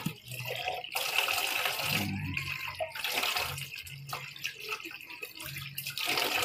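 Tap water running and splashing into a stainless steel basin as plastic baby bottles are rinsed by hand, washing out leftover milk.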